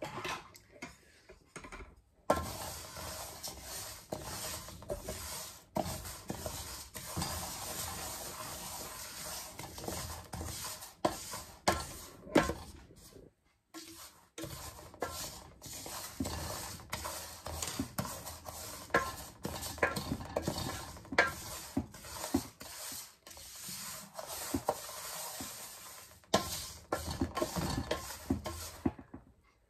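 Wooden spatula stirring sesame seeds as they toast in a shallow metal pan: a steady rustling scrape of seeds against the metal, with frequent small clicks. It starts about two seconds in, pauses briefly around the middle and stops just before the end.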